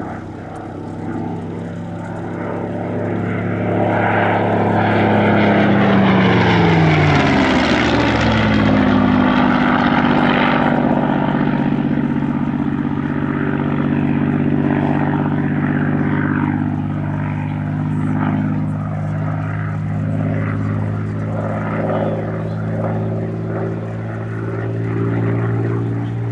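Supermarine Spitfire PR XI's Rolls-Royce Merlin V12 engine in a display pass. The engine note grows louder to a peak about six seconds in, drops sharply in pitch as the aircraft goes by, then carries on as a steady drone.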